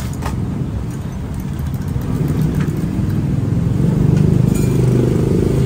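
A low, steady engine-like hum that swells louder about four seconds in.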